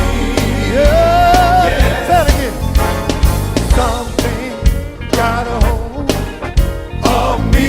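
Traditional black gospel quartet music: a voice holding and bending a long note over the band's steady beat.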